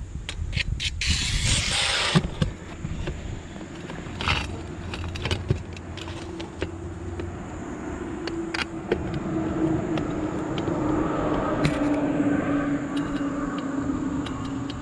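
Metal clicks and scrapes from handling a stainless triple-wall chimney pipe and tightening a sheet-metal band clamp around it, with a scraping rustle in the first two seconds. Under it a steady engine hum sets in, slowly wavering in pitch and growing louder in the second half.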